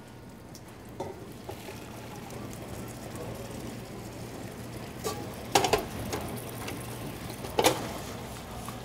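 Spaghettoni and its cooking water poured from a steel pot through a mesh strainer, a steady splashing hiss of draining water and simmering sauce, with a few sharp clinks of steel pans and utensils.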